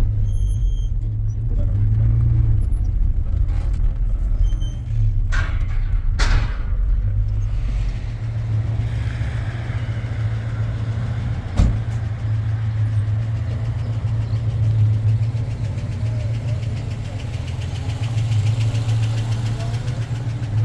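A car engine running steadily with a low hum. A short electronic beep comes near the start, a rushing swell about 6 s in, and a single sharp click a little past halfway.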